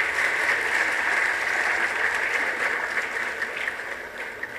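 Audience applauding in a large hall, steady at first and dying away near the end.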